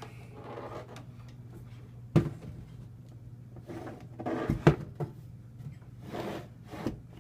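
Knocks and clunks from handling a 20-inch box fan as it is turned around on a surface. There is one sharp knock about two seconds in, a cluster of clatters a little past the middle (the loudest), and two more near the end, over a steady low hum.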